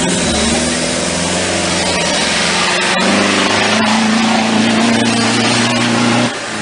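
Off-road 4x4's engine running hard under load in deep mud. The revs step up about three seconds in and hold, then drop off sharply just before the end.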